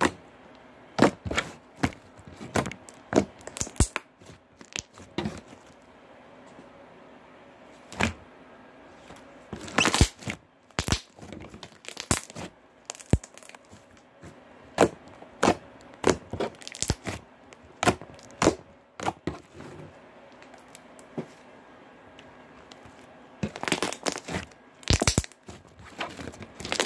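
Slime squished and pulled by hand, giving off irregular sticky pops and clicks, some single and some in quick clusters, busiest about ten seconds in and near the end.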